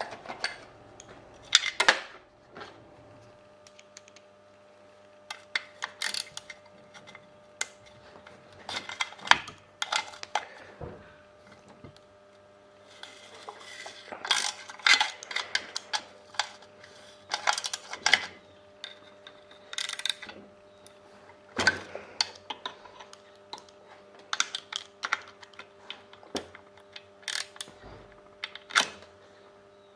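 Metal tools and small metal parts clinking, tapping and clanking irregularly against a chainsaw while its muffler is unbolted and taken off, with a busier run of clicks a third of the way in.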